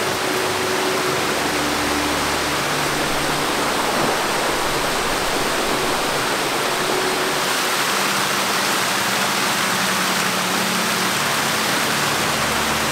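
Small waterfall cascading over rock ledges: a steady rush of falling water.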